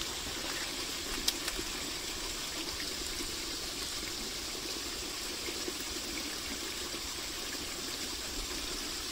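Water running steadily in a continuous flowing hiss, with one short sharp click about a second in.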